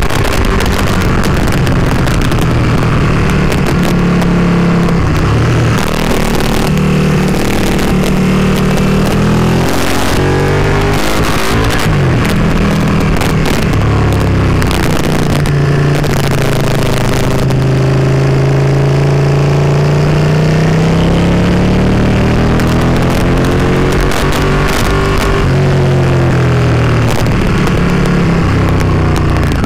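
Ducati Panigale 959's V-twin engine heard from on board while riding. Its note steps at several gear changes and glides down and back up as the throttle is eased off and opened again.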